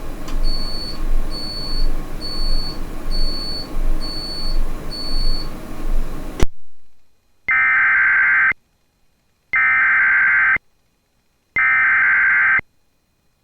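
Six short, high beeps about three-quarters of a second apart over a steady hiss and hum, cut off suddenly about halfway through. Then three one-second bursts of an Emergency Alert System SAME header, the raspy digital data tone that encodes an alert, spaced a second apart.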